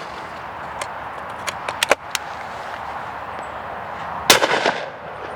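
A single shot from a Purdey Sporter shotgun about four seconds in, sharp and followed by a short echoing tail. A few faint sharp pops come earlier over a steady outdoor hiss.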